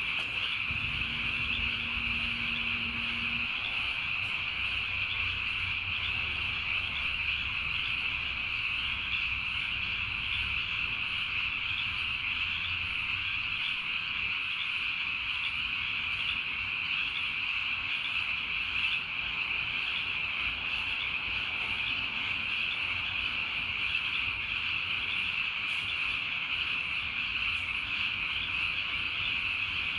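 Steady night chorus of small calling animals: an even, high-pitched drone with no breaks or pauses.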